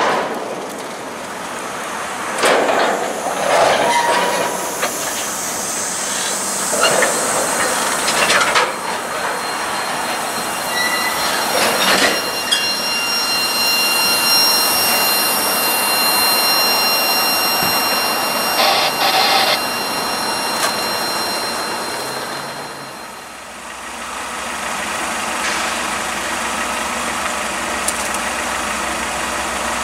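Freight train cars rolling past close by: steel wheels clattering over the rail joints with scattered clanks, and thin, high flange squeals partway through. About three-quarters of the way in the sound drops and changes to a quieter, steadier rumble with a low hum.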